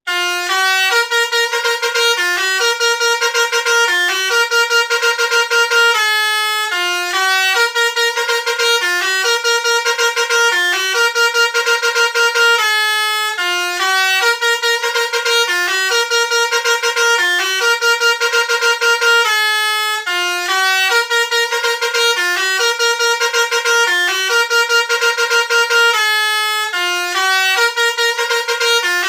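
A basuri multi-tone bus horn, the Indonesian 'telolet' horn, plays a melody without a break. A fast-pulsing middle note alternates with short stepped notes, and the phrase repeats about every seven seconds, four times over.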